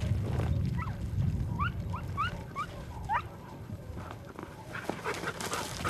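Podenco Canario hunting dogs yelping: a string of about seven short, high, rising yelps from about one to three seconds in, over a low rumbling background.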